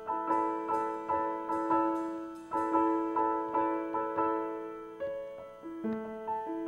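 Solo piano playing a repeating broken-chord figure, notes struck about two to three a second and left to ring out.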